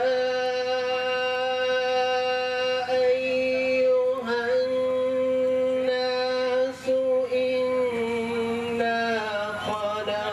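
A man reciting the Quran (tilawat) in a melodic chant. He holds long, drawn-out notes for several seconds each, with a brief break for breath about four seconds in and again about seven seconds in.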